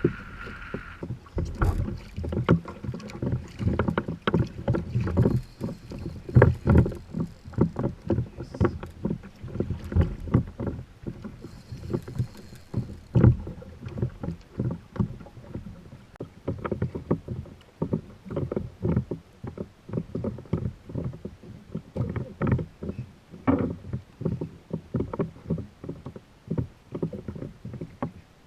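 Water slapping and knocking irregularly against a kayak's hull as it moves on the sea. A steady higher tone stops about a second in.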